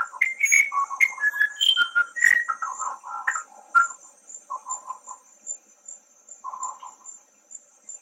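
Musician wren singing a run of clear whistled notes that jump between pitches, densest in the first four seconds, then two short phrases later on. A steady, pulsing high-pitched insect trill runs underneath throughout.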